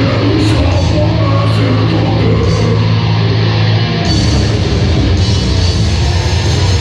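Live death metal band playing loud, with distorted guitars and bass over drums. A held low riff with a cymbal hit about once a second gives way, about four seconds in, to a denser stretch with a steady cymbal wash.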